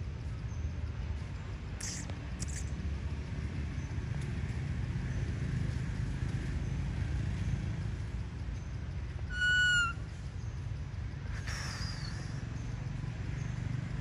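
Outdoor ambience with a steady low rumble, two brief high chirps about two seconds in, and one short, clear, whistle-like animal call with a slight downward pitch about nine and a half seconds in, followed by a noisier high call that falls in pitch about two seconds later.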